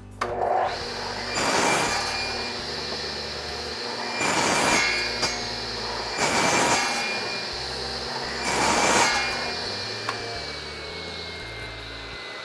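Craftsman Professional radial arm saw switched on with a high whine, then crosscutting a strip of scrap wood four times, each cut a louder rasping surge. About ten seconds in the motor is switched off and the whine slowly falls as the blade coasts down.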